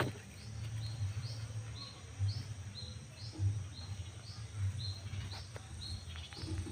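A small animal's short, rising high chirps repeat steadily, about two or three a second, over a low rumble.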